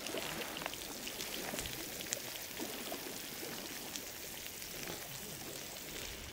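Steady fizzing crackle of melted raclette cheese bubbling in a hot sandwich-toaster pan over a charcoal grill, dotted with small ticks as a knife scrapes it out onto bread.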